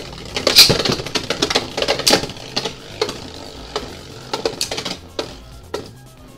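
Two Beyblade Burst spinning tops, Cognite C3 and Doomscizor, clashing in a plastic stadium. There is a rapid run of sharp clacking hits in the first couple of seconds, then sparser single knocks as they circle and strike each other.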